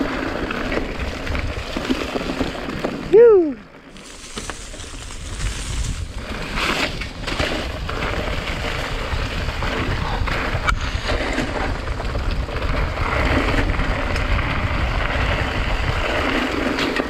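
Steady wind rush on the microphone and the rumble of a mountain bike rolling over a dirt singletrack on a descent. About three seconds in there is one brief, loud pitched sound that rises and then falls, and the sound is briefly muffled just after it.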